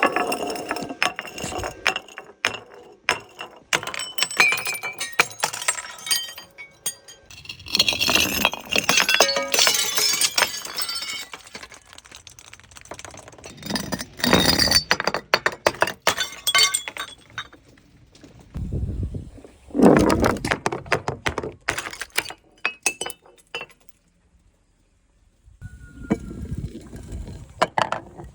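Glass bottles breaking, with sharp cracks and shards clinking. The sound comes in several separate bursts, and there is a short silence near the end.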